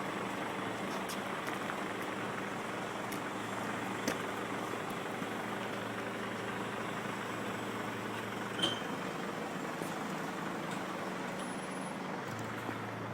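Heavy road-transport truck's engine running steadily with a low drone, and a brief sharp chirp about eight and a half seconds in.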